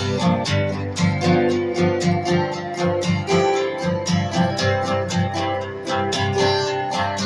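Instrumental music: a strummed acoustic guitar playing a steady rhythm with accompanying instruments.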